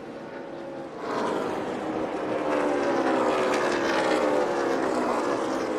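NASCAR stock car V8 engines running, getting louder about a second in, with their pitch falling slowly and steadily as the cars slow.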